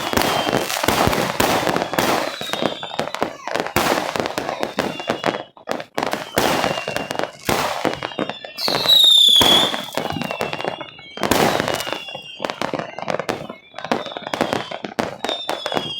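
Fireworks going off in rapid, irregular succession: sharp bangs and crackle, with short falling whistles between them and one loud whistle lasting about a second midway through.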